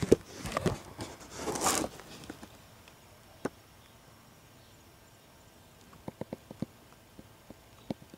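Close handling noise: a burst of knocks and rustling in the first two seconds, then a single click and later a quick run of light clicks.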